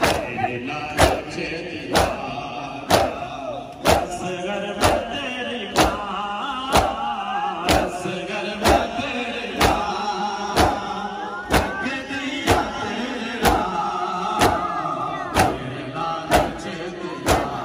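Mourners performing matam, beating their chests with their hands in unison: a sharp slap about once a second, over men's voices singing a noha.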